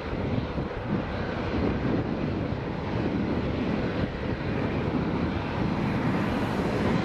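Jet engines of an Airbus A330-300 making a steady rumble as the airliner rolls away down the runway.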